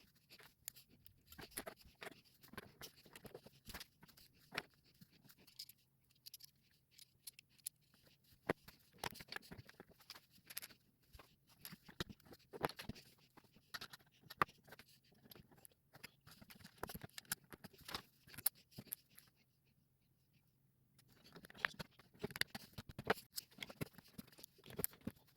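LEGO bricks clicking and clattering as small plastic pieces are handled and snapped together: many sharp, irregular clicks, with a pause of about two seconds near the end.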